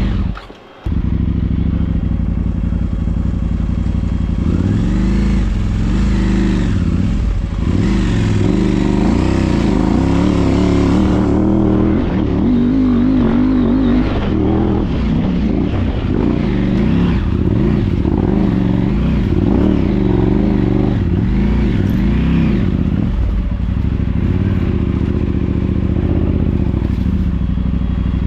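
Motorcycle engine running under way, its pitch rising and falling with the throttle throughout. It cuts out briefly about half a second in.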